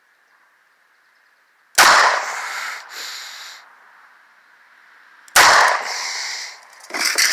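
Two shots from a Smith & Wesson Airweight hammerless .38 Special snub-nose revolver firing 158-grain rounds, about three and a half seconds apart, each with an echo that trails off over a second or so.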